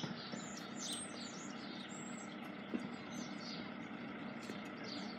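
Small birds chirping in short, falling high notes over a steady low background hum, with one brief tap nearly three seconds in.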